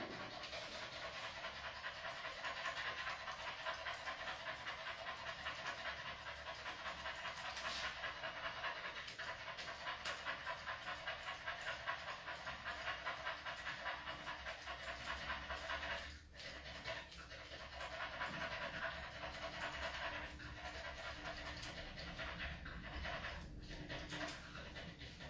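Small white mixed-breed dog panting in quick, even breaths, a few a second, with a brief pause about sixteen seconds in.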